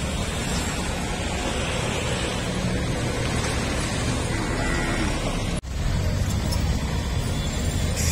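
Steady rumbling background noise of a roadside, with no clear single event, cut off for an instant about five and a half seconds in.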